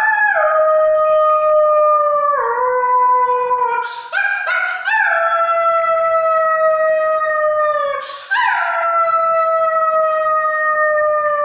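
A child's voice imitating a wolf howling: three long howls, each rising quickly and then slowly falling in pitch, with a few short yips before the second.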